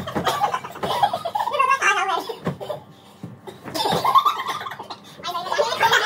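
Several men laughing and yelling in bursts, with soft thumps of pillows being swung and landing.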